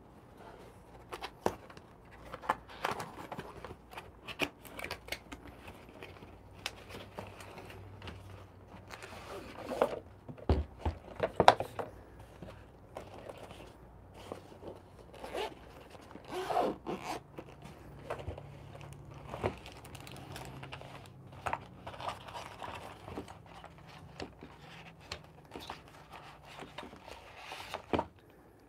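Unboxing handling sounds: a cardboard box slid open and a zippered fabric carry case taken out and unzipped, with scattered knocks, scrapes and rustles, the loudest knock about eleven seconds in.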